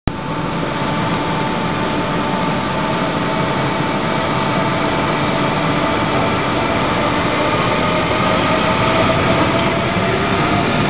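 NS class 186 (Bombardier TRAXX) electric locomotive standing at the platform with its equipment running: a steady drone with several steady whining tones, one of which rises slightly in the second half.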